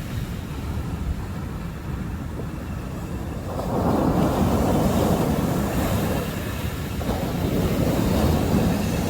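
Sea waves surging onto the shore, a low noisy rumble that swells twice, with wind buffeting the microphone.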